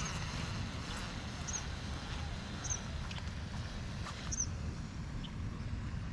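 A small bird gives a short, high chirp about every second and a half, five times, over a steady low rumble.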